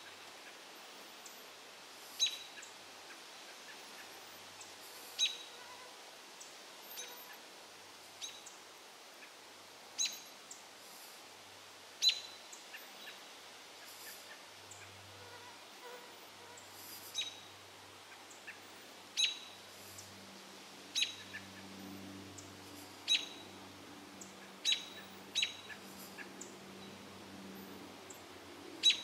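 American robins giving short, sharp alarm calls, about a dozen spaced irregularly every one to three seconds: they are scolding a great gray owl in their territory.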